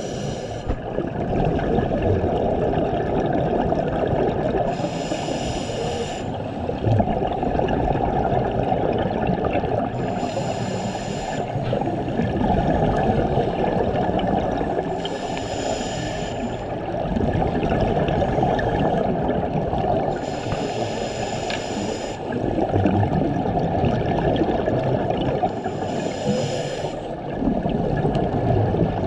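A scuba diver breathing through a regulator underwater: a hiss about every five seconds, over a steady bubbling water rush.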